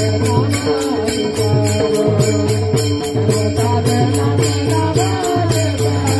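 Marathi abhang devotional music: a chanted melody over a steady drone, with small hand cymbals keeping an even beat and a drum striking low underneath.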